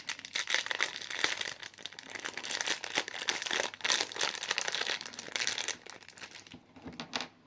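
Packaging crinkling and rustling as a small packet is handled and opened, a dense run of crackles that thins out near the end.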